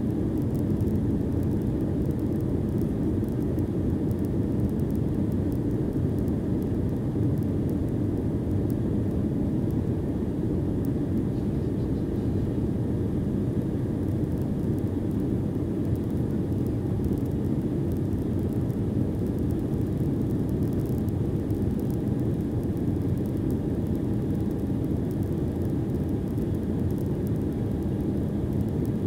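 Steady low cabin noise inside a Boeing 777-300ER climbing out after takeoff: its GE90-115B engines and the air rushing past the fuselage, with a faint steady whine above.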